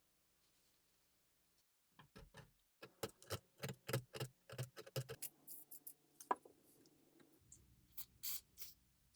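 A run of sharp knocks and clicks, about three a second, starting about two seconds in, then a faint low steady hum and a few lighter, high clicks near the end.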